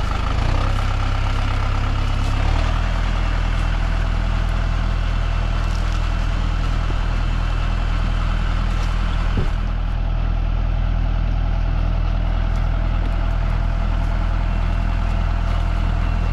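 Tractor engine running steadily, its note shifting lower about two and a half seconds in.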